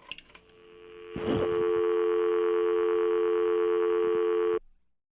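Telephone handset handled with a few clicks and a knock, then a steady dial tone of two blended pitches that cuts off suddenly near the end.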